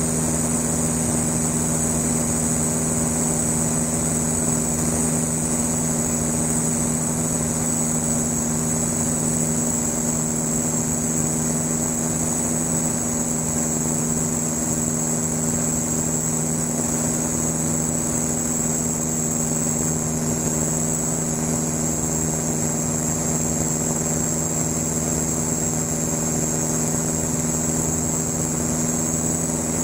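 Van's RV-7 light aircraft's piston engine and propeller droning steadily in flight, heard from inside the cockpit, with a constant high-pitched whine above it.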